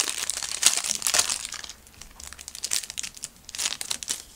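Clear plastic wrapper of a trading-card pack crinkling as it is handled, busiest in the first couple of seconds, then a few shorter crackles.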